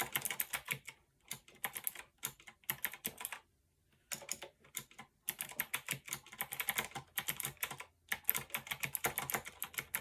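Fast typing on a Fineday mechanical keyboard: runs of rapid keystrokes with brief pauses between bursts. The switches are fairly soft and not very clicky.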